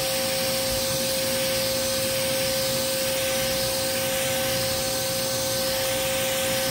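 Ryobi 2000 PSI pressure washer spraying through a 25-degree fan tip onto a car wheel and tyre: a steady hiss of high-pressure water over the machine's constant motor and pump whine.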